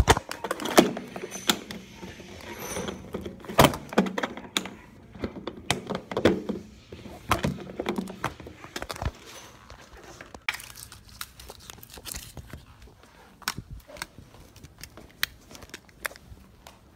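Irregular clicks, knocks and thunks of objects being handled and set down, denser in the first half.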